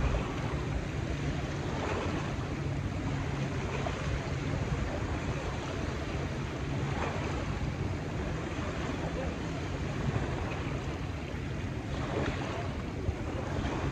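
Small river waves lapping and washing onto a sandy, rocky shore, swelling every few seconds, with wind rumbling on the microphone and a low steady hum underneath.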